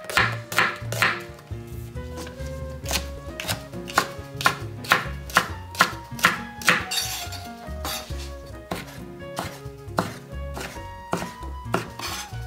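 Knife chopping on a cutting board in a steady run of sharp strokes, about two a second, with a brief scraping hiss about seven seconds in, over soft background music.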